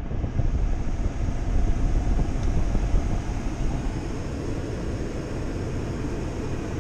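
Steady rushing noise inside a car cabin, the ventilation fan blowing over a low engine hum. It is rougher and louder in the first three seconds, then settles.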